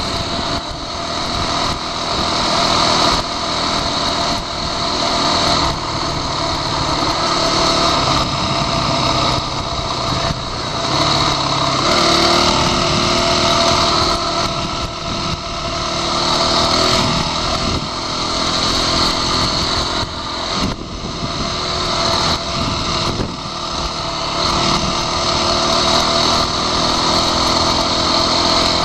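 Dirt bike engine running under way, its revs rising and falling with the throttle and gear changes, with a few short dips when the throttle is let off.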